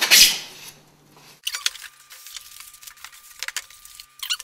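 Cardboard box being opened: a loud scraping rustle of cardboard at the start. Then comes a run of short, sharp crinkles and crackles as the packing material and insert are handled.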